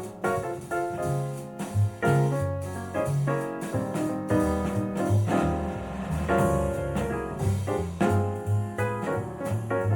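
Jazz with piano and a moving bass line, played back through JBL 4307 studio monitor speakers driven by a Yamaha A-S3000 amplifier.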